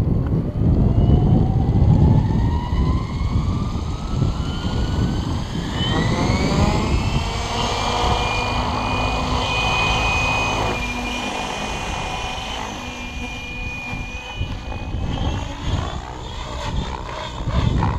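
Electric RC helicopter (Align T-Rex 700 stretched to 800) with a Dominator 490kv brushless motor spooling up: a whine rising steadily in pitch over about seven seconds as the rotor comes up to head speed, then holding steady. Near the end the helicopter lifts off and the sound turns unsteady. Wind rumbles on the microphone at the start.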